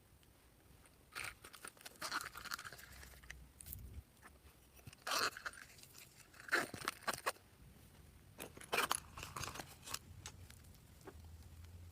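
Slime being mixed and squeezed, giving irregular bursts of wet crackling and clicking with short pauses between them.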